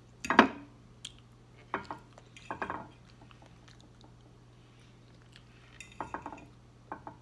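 A metal fork scraping and clinking against a plate while eggs are scooped up: a handful of short scrapes, the loudest about half a second in.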